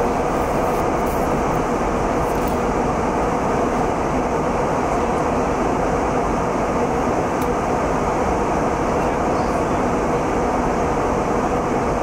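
Steady airliner cabin noise at cruise altitude: an even, constant rush of engines and airflow.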